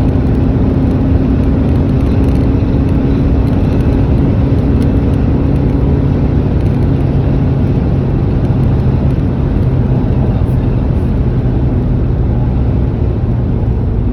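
Renault Megane's diesel engine running steadily with tyre and road noise, heard from inside the car's cabin while driving.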